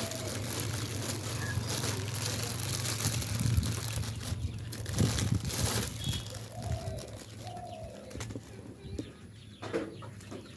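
Birds calling, a few short calls, over a steady low hum, with a few knocks in the middle.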